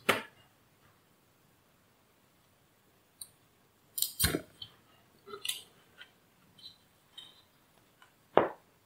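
Scattered light clicks and taps from a circuit board and soldering iron being handled, with a cluster about four seconds in and one sharper knock near the end.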